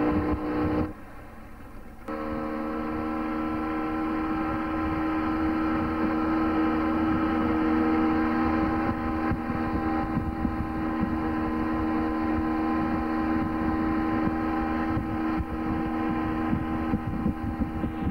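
Outboard motor of a ski boat running steadily at towing speed, a constant drone. The sound drops away for about a second shortly after the start, then the engine continues unchanged.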